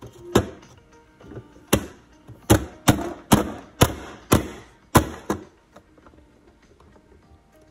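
Push-down plastic vegetable chopper dicing onion: the lid is slapped down again and again, forcing the onion through the dicing grid. About nine sharp clacks, unevenly spaced and quickest in the middle, ending after about five and a half seconds.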